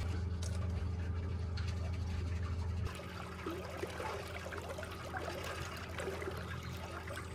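Water churning and trickling past the hull of an electric narrowboat under way, over a steady low hum from its electric drive that drops in level about three seconds in.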